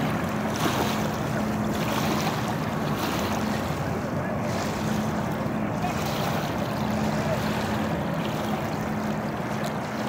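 A boat's engine running with a steady low drone that fades in and out, under a gusty rush of wind on the microphone.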